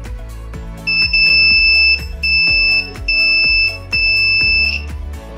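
Multimeter continuity beeper sounding four times as the probes touch the diode's leads, a steady high beep each time, the first about a second in and the longest. The beeping shows the diode conducting where it should not, marking it as a bad diode. Background music plays underneath.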